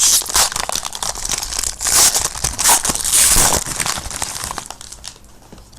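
A trading-card pack wrapper being torn open and crinkled, a dense run of crackling that is loudest for the first few seconds and dies down near the end.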